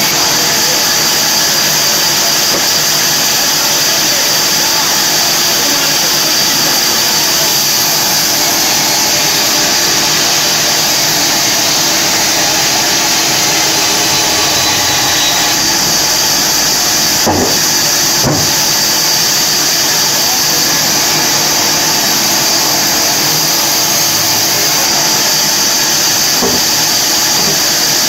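Large vertical bandsaw running steadily as blocks of log are pushed through its blade, giving a loud, even hiss-like whine. Two brief knocks come about two-thirds of the way through.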